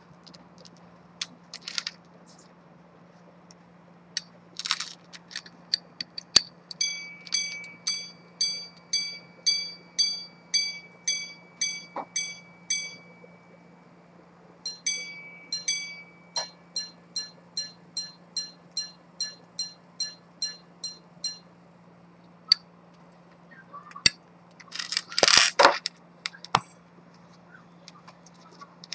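Antique minute-repeater pocket watch chiming on its gongs: after a few small clicks, a long run of evenly spaced ringing strikes, about two a second, then after a short pause a second run in a different tone, starting with a few paired strikes, the pattern of a repeater sounding hours, then quarters and minutes. Near the end, a brief scraping rustle of the watch being handled.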